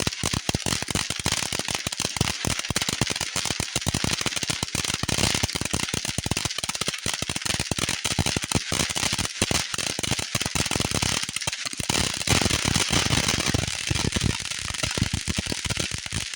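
Fireworks going off in a rapid, unbroken run of sharp pops and crackles, like a long string of firecrackers or a crackling cake.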